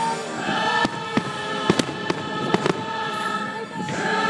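Aerial fireworks shells bursting in a quick string of sharp bangs, about seven of them, mostly in the first half, over steady music.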